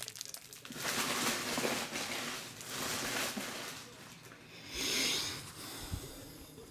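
Foil trading-card pack wrappers and cards being handled, crinkling and rustling in three short swells that grow weaker.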